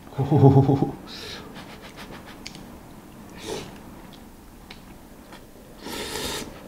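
Noodles being slurped and eaten: small wet clicks of chewing, a short slurp a little past halfway and a longer slurp near the end. A brief hummed voice sound right at the start is the loudest thing.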